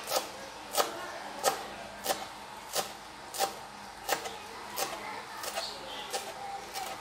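Knife chopping fresh coriander on a cutting board: steady, even chops, about one and a half a second.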